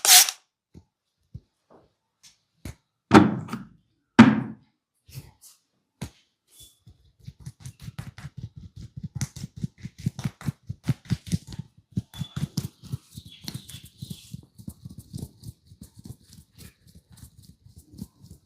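Massage strokes of hands striking the head or back: two hard slaps about three and four seconds in, then fast rhythmic percussive tapping at about three to four strikes a second.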